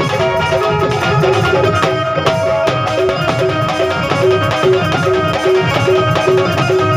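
Amplified live Punjabi folk band playing an instrumental passage: a short melodic figure repeating over and over above a steady hand-drum beat.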